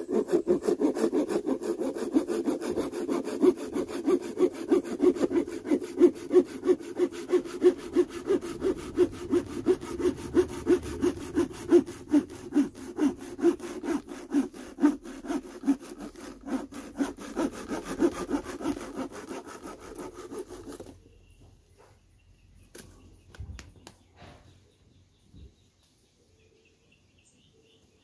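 A hand saw made from a wood-pruning reciprocating-saw blade cutting through a dry stick: a steady back-and-forth rasp at about two strokes a second that stops about 21 seconds in. A few faint knocks follow.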